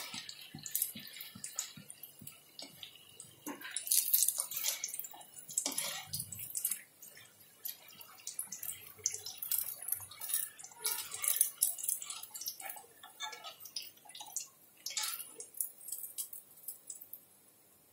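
Battered green chillies deep-frying in hot oil in an aluminium kadhai, the oil bubbling and sizzling, with irregular scrapes and clinks of a wire skimmer against the pan as the pakoras are stirred and lifted out.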